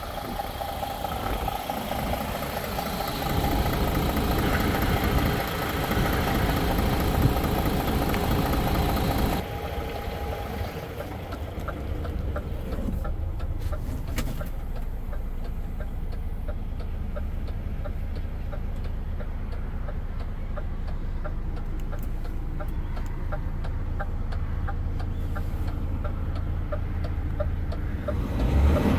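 DAF XF 480's PACCAR MX-13 six-cylinder diesel idling. It is heard close up at first, then after an abrupt change about nine seconds in it is quieter and muffled from inside the cab, with a light regular ticking coming through.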